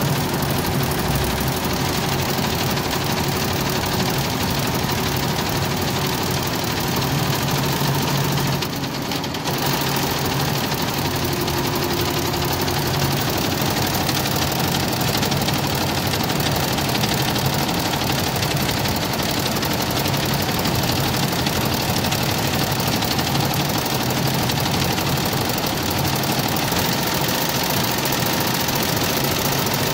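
Multi-head industrial embroidery machine running and stitching, a steady dense mechanical clatter of the needle heads. The sound dips briefly about nine seconds in.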